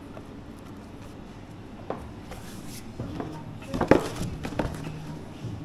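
A few knocks and clatters of kitchen work at a counter, the loudest about four seconds in, over a low steady hum.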